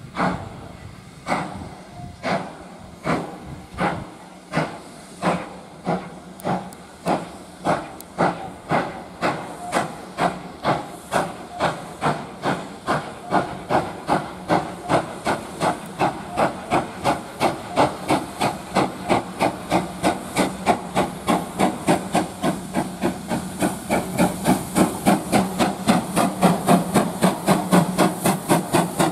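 GWR Modified Hall class 4-6-0 steam locomotive No. 6989 pulling away with its train: its exhaust beats start about a second apart and quicken steadily to several a second, getting louder as it gathers speed. A steady hiss of steam from the open cylinder drain cocks runs under the beats.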